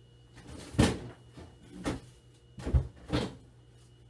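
Four knocks and thuds while a jar of pre-cut garlic is fetched and handled, the loudest about a second in and near the three-quarter mark.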